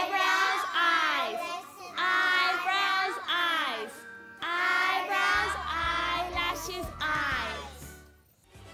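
Children singing a body-parts action song along with the teacher, in short phrases. A low bass line comes in about five seconds in.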